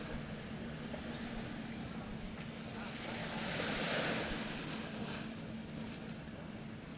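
Beach wind and surf noise, swelling to a peak about halfway through and easing again. A faint steady low hum runs underneath.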